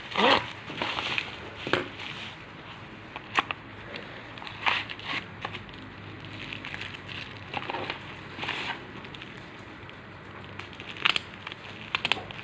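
Plastic packaging crinkling and rustling as it is handled, in irregular short bursts, with the loudest handling just after the start and again near the end.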